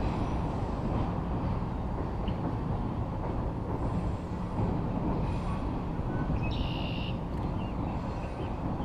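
Double-stack container freight train rolling across a steel trestle bridge: a steady low rumble, with a brief high-pitched tone about six and a half seconds in.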